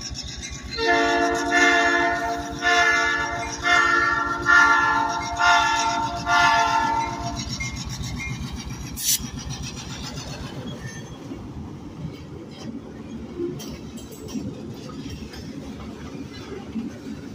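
EMD GP-series diesel locomotive sounding its multi-note air horn for about seven seconds, swelling and fading in several blasts. After the horn stops, the diesel engine and the train's wheels keep up a steady rumble as the train rolls past.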